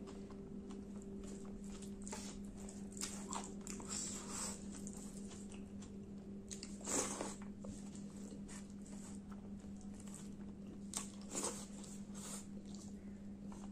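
A person eating curry-soaked rice by hand: fingers gathering rice on a plate, then chewing, heard as faint, scattered short smacks and clicks over a steady low hum.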